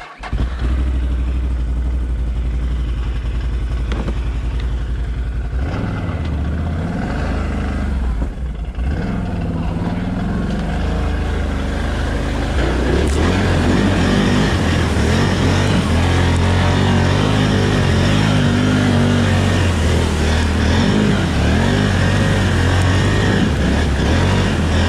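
ATV engine running steadily under load, its pitch shifting as the throttle changes, and louder from about halfway in.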